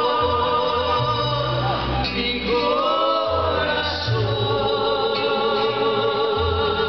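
Mariachi group playing and singing, with long held sung notes over a steady bass line.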